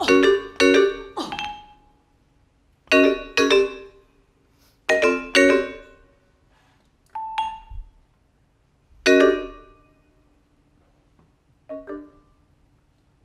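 Vibraphone chords struck with soft mallets in sparse pairs, each ringing out and fading within about a second, with near-silent gaps between. A brief higher held note sounds about midway.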